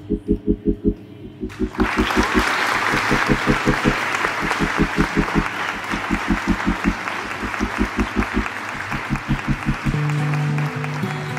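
Background music with a quick, even beat. About two seconds in, a crowd applauding and cheering joins it as a celebration effect for the finished puzzle. Near the end the beat gives way to steady held notes.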